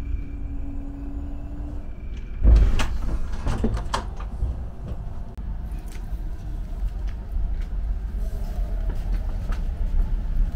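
Inside a railway sleeping car standing at the station: a steady low rumble, then about two and a half seconds in a burst of clunks and knocks from a door being worked, followed by scattered lighter knocks and rattles.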